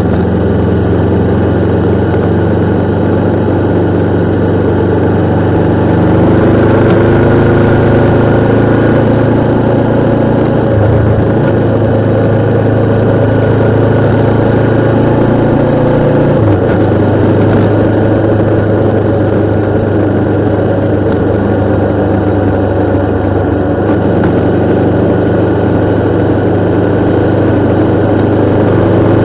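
Motorcycle engine running steadily while being ridden on a circuit. The engine note changes briefly about eleven seconds in and again at about sixteen seconds.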